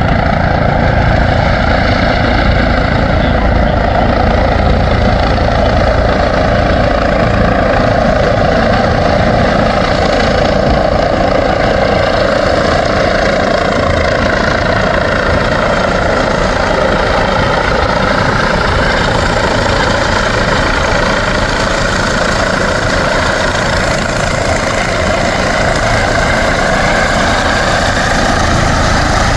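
Medevac helicopter coming in to land, its rotor and turbine running steadily and loudly as it hovers and descends. The pitch dips about halfway through and rises again near the end.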